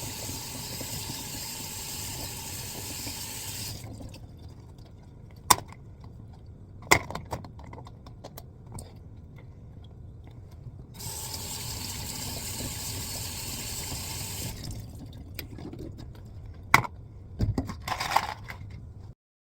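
Water running from a tap in two stretches of a few seconds each, with sharp clicks and knocks in between and a small clatter near the end.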